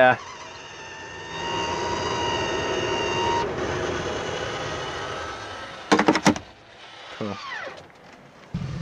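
Campervan roof vent fan running, a steady motor whine over a rush of air that changes about three seconds in and fades out, followed by a few sharp clicks about six seconds in.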